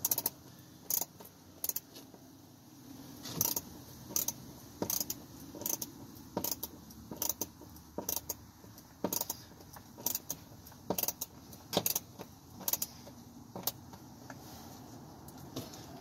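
Sharp metallic clicks, irregular and one or two a second, sometimes in quick pairs, from a screwdriver with a T27 Torx bit driving the door panel's screws back in.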